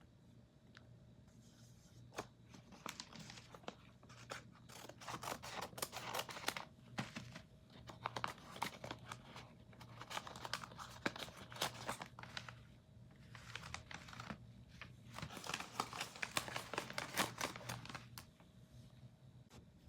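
A gum blind bag's plastic wrapper being torn open and crinkled by hand. Sharp crackling comes in about three stretches, with short pauses between them.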